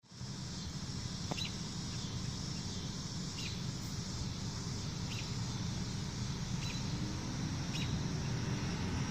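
Steady outdoor background noise with a short, high bird chirp repeated about every second and a half.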